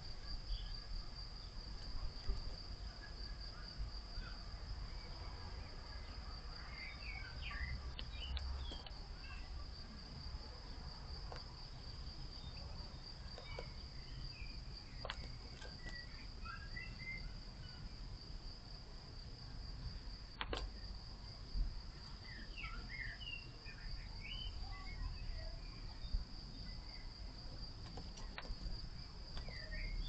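Garden ambience: a steady high-pitched buzz like an insect trill runs throughout, with faint scattered songbird chirps in the background and a few soft clicks.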